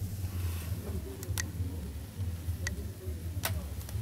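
About five light, sharp clicks spaced irregularly over a low, steady rumble, heard inside a closed truck cab.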